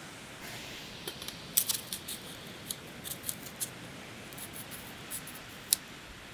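Clicks and light scrapes of a collapsible stand-up paddle's shaft sections being handled and adjusted: a dozen or so short, sharp ticks at irregular intervals over a faint steady hiss.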